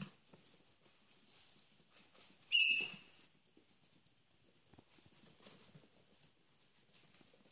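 Chihuahua puppies' claws ticking faintly on a laminate floor as they trot about, with one short, loud, high-pitched squeak about two and a half seconds in.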